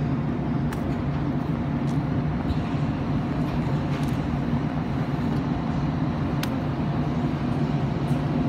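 An engine or motor running steadily at a constant speed, with a few faint clicks.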